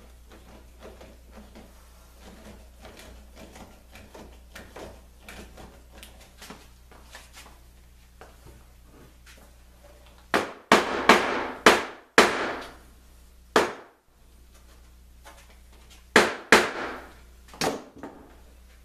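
A mallet striking the edge of a clamped, laminated baltic birch plywood ring, tapping the strips into place: a run of about six sharp blows, then three more a few seconds later. Before the blows, faint clicks of bar clamps being handled.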